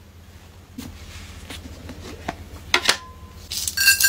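A few light clicks and taps, then near the end tiny candy pieces begin pouring from a plastic cup into a glass bowl with a building rattling hiss.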